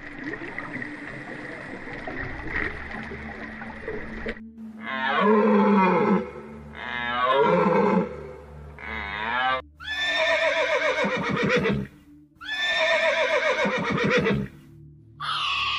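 A steady hiss for about four seconds, then three loud deer calls that each fall in pitch, followed by two long, quavering horse whinnies.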